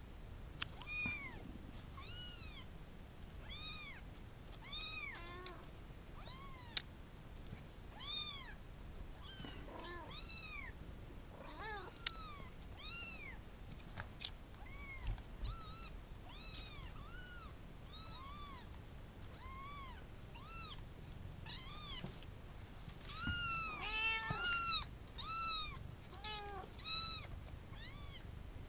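Cats meowing over and over: short, high, rising-then-falling meows about one a second, with several overlapping from more than one cat near the end. A few sharp clicks sound between them.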